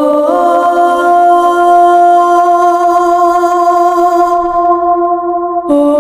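Background music of long, held, voice-like notes, the pitch shifting up just after the start and dropping again near the end.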